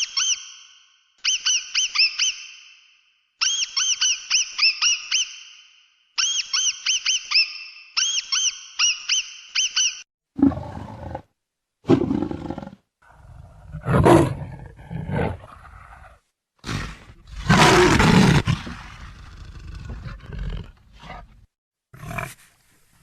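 Animal sound effects: for about ten seconds, groups of quick, high-pitched chirping calls, then an animal roaring in several loud calls with pauses between them.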